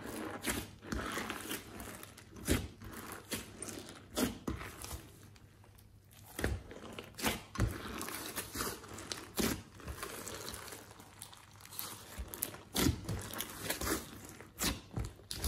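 Glossy slime being kneaded, folded and pressed by hand in a glass dish: wet squishing with many irregular sharp clicks and pops.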